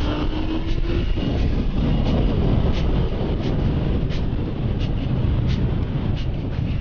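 Motorcycle engine pulling up through the revs for about the first second, then dropping away under a steady rush of wind buffeting the microphone and road noise as the bike rides on.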